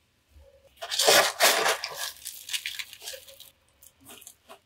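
A burst of crunchy rustling handling noise while succulents are being potted up, loudest for about a second, then thinning into lighter rustles and a few small clicks.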